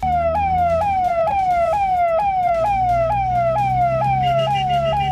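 Electronic police-style siren: a wailing tone that jumps up and slides down about twice a second, repeating steadily over a low hum.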